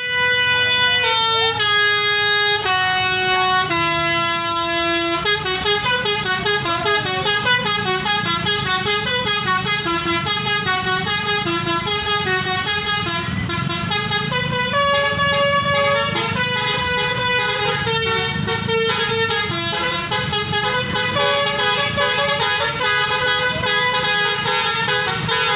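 Bus telolet horn, a multi-tone musical air horn, playing a long tune: a few held notes stepping down in pitch over the first five seconds, then quick trilling, alternating notes. Engine and traffic rumble run underneath.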